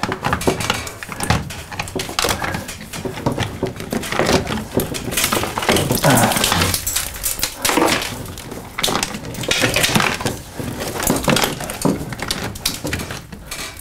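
Hand and arm scraping and crunching around the edges of a hole in a plaster-and-metal-lath ceiling: irregular crackling, knocks and rustling as bits of plaster break and the mesh is pushed aside, with a few short strained grunts in between.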